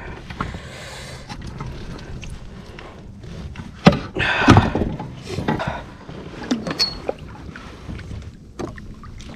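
Handling noises on a Hobie Pro Angler kayak's plastic deck while a largemouth bass is held: scattered knocks and rustles, with a sharp knock about four seconds in followed by a louder half-second rustle.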